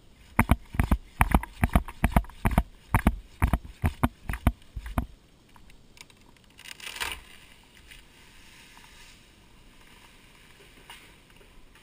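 Hand pruning saw cutting through the top of an oak stem: about a dozen quick, loud strokes over five seconds, then a short rush of noise about seven seconds in as the cut piece goes.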